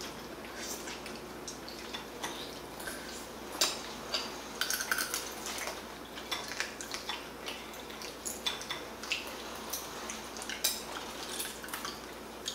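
Eating sounds from someone eating with his hands: irregular short clicks, smacks and small taps, scattered through, over a faint steady room background.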